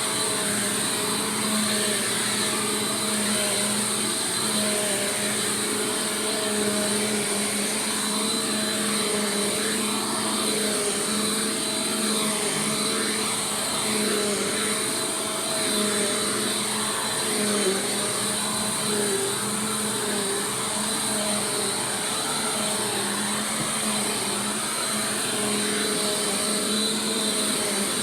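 Bissell PowerForce Compact Turbo upright vacuum cleaner running steadily. Its motor hum wavers slightly in pitch over a constant high airflow hiss.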